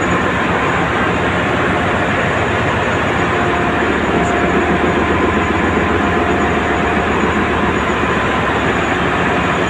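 Ship's engine-room machinery running: a loud, steady din with a few faint constant whines in it.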